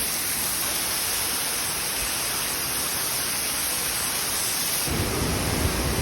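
Steady rushing hiss of falling water from a waterfall, with a low rumble joining in for about the last second.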